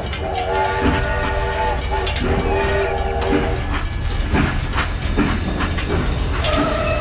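Toy steam locomotive running on plastic track: an electronic train-whistle tone pattern, repeated, over a steady low motor hum and clicks from the wheels.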